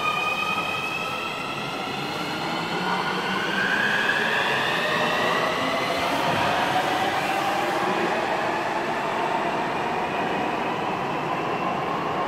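Nuremberg U-Bahn metro train accelerating past the platform. Its traction motors give a whine of several tones that climbs steadily in pitch, over the continuous rumble of the wheels on the rails.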